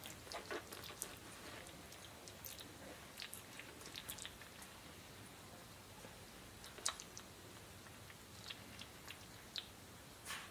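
Faint, irregular soft clicks and mouth-smacking sounds from sleeping Bernese mountain dog puppies, with one sharper click about seven seconds in.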